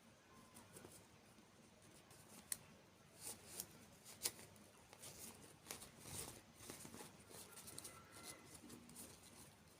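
Faint, scattered small clicks and light rustling, as of small objects being handled, with two sharper clicks about two and a half and four seconds in.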